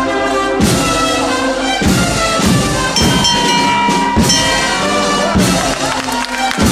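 Band music with brass instruments playing held chords over a steady drum beat, a little under two beats a second.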